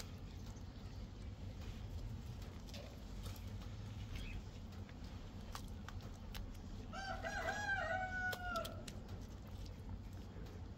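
A rooster crows once, a single wavering call of nearly two seconds about seven seconds in, over a steady low hum and faint taps of stones being handled.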